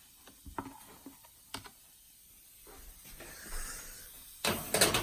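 A few light clicks and taps from oven handling, then a louder clatter about four and a half seconds in.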